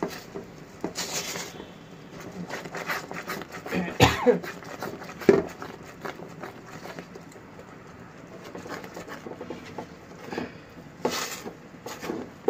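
Silicone spatula stirring and scraping caramel sauce in a metal pan as it bubbles on the heat, giving scattered soft clicks, knocks and pops. The sauce is still thin and is being cooked down to thicken.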